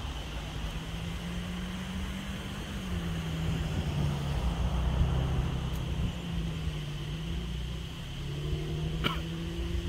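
Distant thunder rumbling low and swelling in the middle, over a droning hum that slides slightly up and down in pitch. A single sharp click comes near the end.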